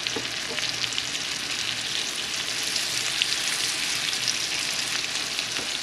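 Tilapia fillets frying in butter in a nonstick skillet: a steady sizzle with many small crackles and pops of spattering fat.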